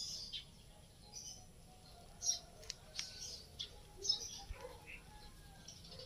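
Small birds chirping: a string of short, high chirps at irregular intervals.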